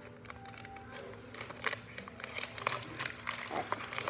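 Thin plastic wrapping on a toy-doll accessory packet crinkling and tearing as it is opened by hand: an irregular run of crackles and rustles that grows busier about halfway through.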